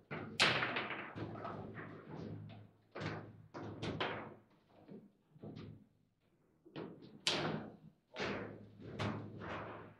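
Foosball table in fast play: the ball cracking against the plastic figures and table walls and the rods knocking, an irregular run of sharp knocks and bangs with a short lull about halfway through.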